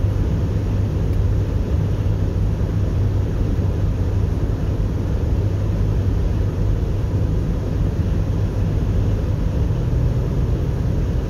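Steady low rumble of a car driving at speed, heard from inside the cabin: engine and road noise with no changes or events.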